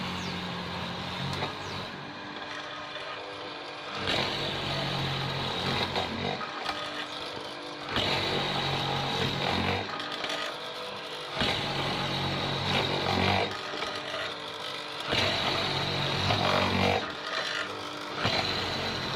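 Electric wood mortising machine with its drill motor running steadily while the chisel bit is plunged into wood again and again. Each cut comes as a louder, harsher stretch about every four seconds, five in all.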